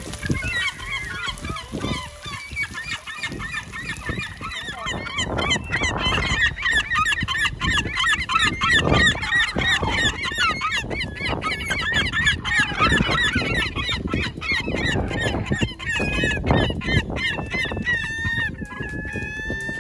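A flock of gulls calling over one another in a constant, loud squabble, young birds and adults fighting with beating wings.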